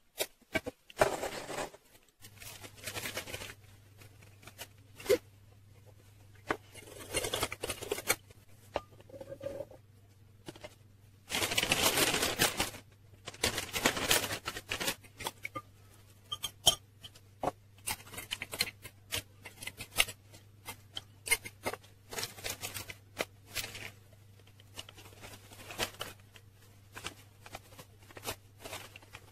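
Kitchen handling sounds: scattered clicks, taps and scrapes of utensils against a plastic food-chopper bowl and cake pan, with two longer rustling noises near the middle. A faint steady hum runs underneath.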